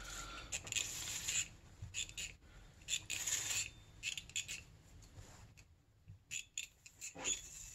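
Short, irregular scraping and clinking as small metal snowmobile power valve parts are handled and rubbed on a towel-covered bench, with a pause of about a second past the midpoint.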